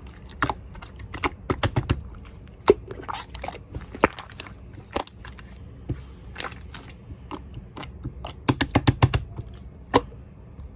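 Soft green slime being squished and poked by hand, giving irregular sticky clicks and small pops, with quick runs of them about a second and a half in and again near the end.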